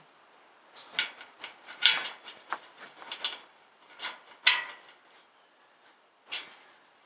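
Irregular clinks and knocks of hand tools and metal parts being handled while working on a tractor's muffler mounting: a quick cluster of sharp strikes over a few seconds, one more near the end.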